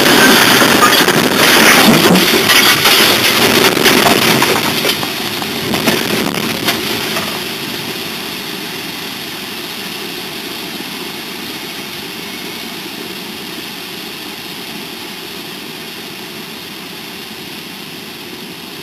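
Head-on collision of two locomotives heard from inside the cab: a loud grinding, crashing din with many sharp cracks of breaking metal and debris, easing after about seven seconds into a steady noise that slowly fades.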